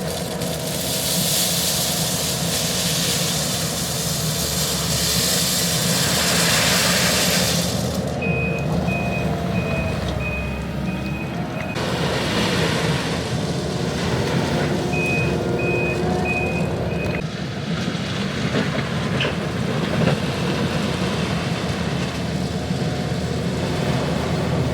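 Forestry mulcher machine at work: its engine runs steadily under load, with a loud grinding rush from the mulching head for roughly the first eight seconds. A reversing alarm then beeps about twice a second in two spells of a few seconds as the machine backs up.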